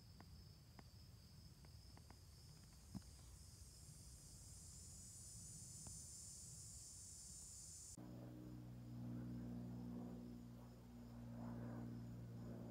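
Faint steady trilling of insects, with a few faint clicks in the first few seconds. About eight seconds in, the sound changes abruptly and a low steady hum joins the trilling.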